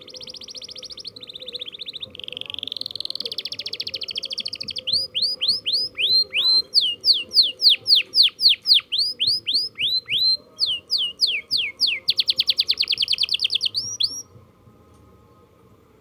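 Domestic canary singing: rapid rolling trills for about five seconds, then a run of loud sweeping notes, two or three a second, closing with a fast trill that stops about fourteen seconds in. The bird is practising rolls.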